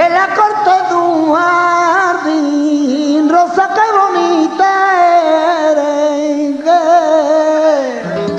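Male flamenco cantaor singing a long, heavily ornamented melismatic fandango phrase with no clear words, over a quieter flamenco guitar; the voice wavers through held notes and slides down to end near the close.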